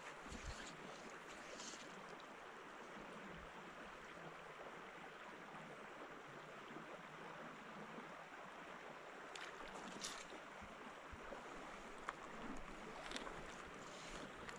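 Faint, steady rush of a small river's flowing water, with a few short ticks in the second half.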